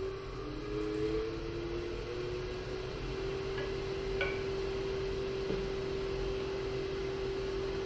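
Powermatic wood lathe motor spinning up with a rising whine over the first few seconds, then running at a steady speed with a bowl blank turning on it.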